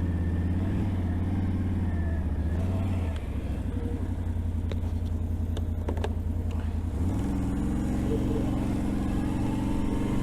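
Can-Am Renegade 1000 ATV's V-twin engine running at low speed, easing off slightly about three seconds in and picking up revs about seven seconds in, with a few sharp clicks in between.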